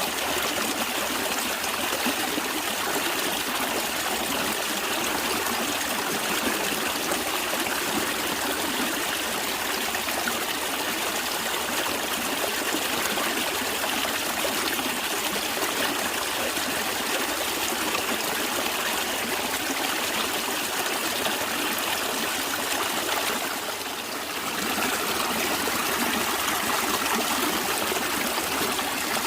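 A natural stream of flowing water, a steady, even rush and trickle, with one brief dip in level about four-fifths of the way through.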